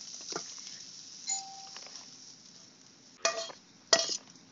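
Cooking utensil and frying pan clattering as chow mein noodles are moved out of the pan, with small clinks and two loud clattering knocks near the end. A short electronic ding sounds about a second in.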